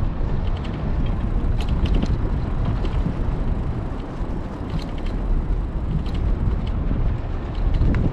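Wind buffeting the microphone of a moving bicycle ride, a loud, steady low rumble, with a few short runs of light ticking from the bicycle's freewheel as it coasts.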